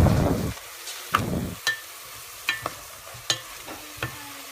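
Beef sizzling in a pan with soy sauce and rice wine while being stirred and turned with a spatula. There are two heavier scraping pushes in the first second and a half, then sharp clicks of the spatula against the pan about every half second to second.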